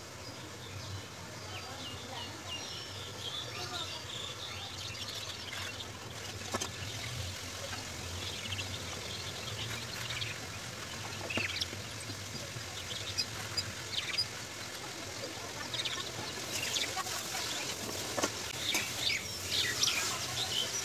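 Small birds chirping in short repeated calls over a low steady hum. Near the end comes a quicker run of short scratchy strokes as a kitchen knife saws through soft burger buns.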